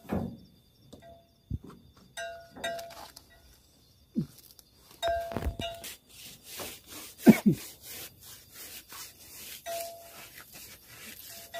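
Gloved hand rubbing rapidly up and down a bull rope, a fast rasping rhythm of short strokes from about halfway through. A few short ringing tones and scattered knocks come earlier.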